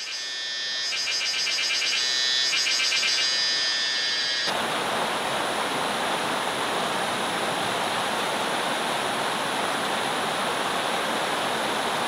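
Steady rushing of a flowing stream. For the first four seconds or so, a high, rhythmic pulsing sits over the water; then a sudden cut brings in the fuller, even rush of the stream at close range.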